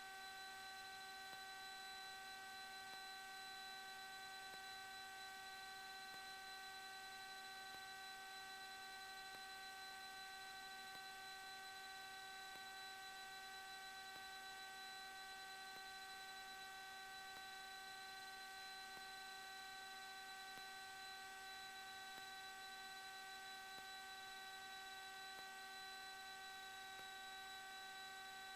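Faint, steady electrical hum in the aircraft's intercom audio feed, several even tones held without change, with no engine or voice coming through.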